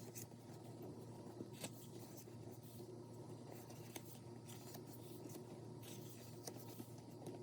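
Faint rustling and a few light clicks of album photobook pages being turned and handled, over a low steady hum.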